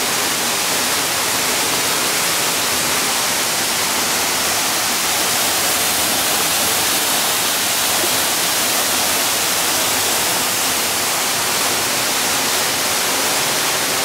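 Waterfall pouring down a rock face into a pool: a steady, even hiss of falling water.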